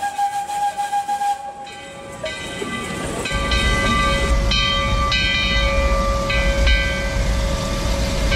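Steam whistle of the 1882 Baldwin narrow-gauge locomotive blowing long, steady blasts: one fades out about two seconds in, and a lower-pitched blast begins about three seconds in and holds to the end over a low rumble.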